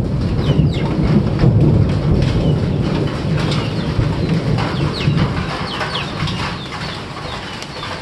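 Heavy rain falling on the vegetation under a low rolling rumble of thunder that slowly fades. Small birds chirp repeatedly throughout.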